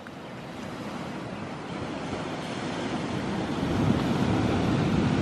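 Ocean surf breaking on a sandy beach: a steady rush of waves that swells louder over the few seconds.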